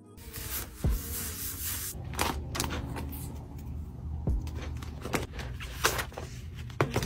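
Crinkling and rustling of a clear plastic sleeve and a stack of paper cutouts and stickers being handled and pulled apart, with many sharp crackles and a few dull knocks on the desk.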